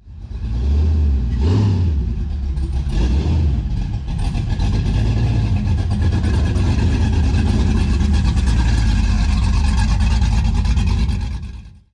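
A vehicle engine, loud and low-pitched, revving briefly twice and then running steadily, cutting off suddenly near the end.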